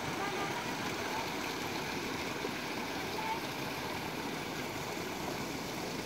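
Water pouring from a spring's outlet pipe and splashing into the stream bed below: a steady rush.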